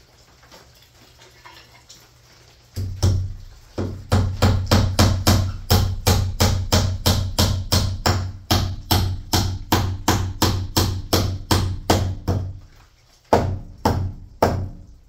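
Hammer striking the overhead wood framing. A couple of blows about three seconds in, then a steady run of about three strikes a second, a short pause, and a few last strikes near the end.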